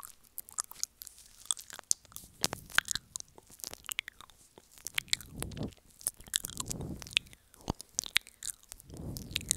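Wet mouth sounds made right against a wired earbud used as a microphone: rapid, irregular lip smacks and tongue clicks, with a few softer, lower rushes of air in between.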